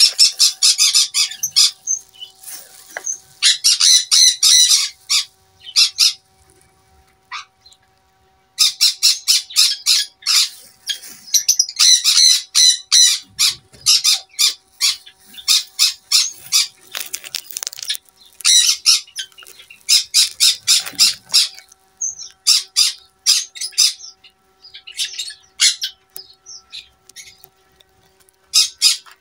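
Small birds chirping in loud bouts of rapid, short, high notes, several a second, with a pause of a couple of seconds about a quarter of the way in.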